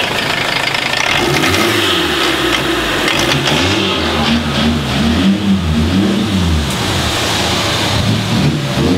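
Turbocharged Citroën ZX engine, steady at first, then revved up and down over and over, about once a second, as the throttle is blipped.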